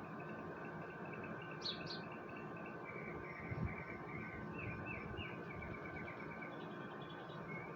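Birds chirping in the background: a quick pair of high notes, then a run of short chirps a couple of seconds later, over a steady outdoor hum.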